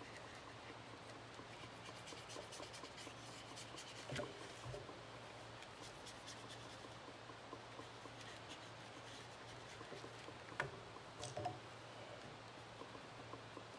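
Faint scratching and rubbing of a paintbrush working watercolour across paper, with a few light knocks, the loudest about ten and a half seconds in.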